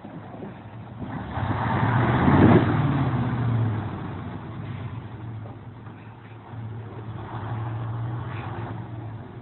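A motor vehicle's engine running, swelling loudly as a vehicle drives close by about two seconds in, then fading. It rises again to a steadier drone near the end.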